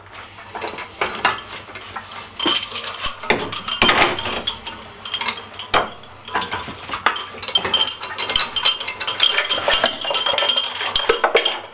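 Steel lifting chains on an engine-crane load leveler clinking and rattling as they are handled and hooked up, a run of short metallic clinks that gets busier after the first couple of seconds.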